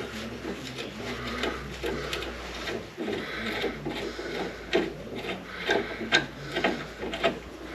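Hand tap cutting threads in a rusty truck's bolt hole, lubricated with cutting oil: irregular metal scraping and rubbing strokes over a steady low hum.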